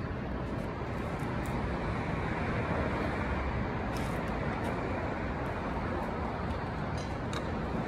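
Steady outdoor traffic rumble, an even hiss and low hum with no breaks, with a few faint light clicks.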